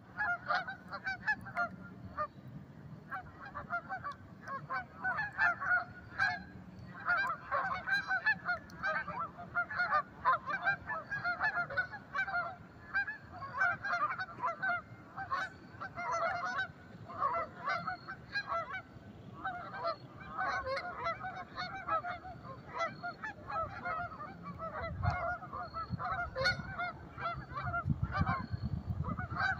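A flock of Canada geese honking: many short calls overlapping without a break. A low rumble joins in near the end.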